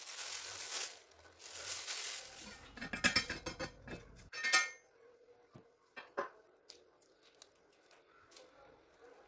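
Kitchen utensils and dishes clattering: a couple of seconds of scraping, then a quick run of rattling clinks, a sharp clink about halfway, and a few light taps after.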